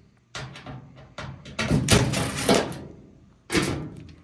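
Knocks and clatter of hard dryer parts and tools being handled while working on a dryer cabinet, with a longer scraping rattle about two seconds in and a sharp knock near the end.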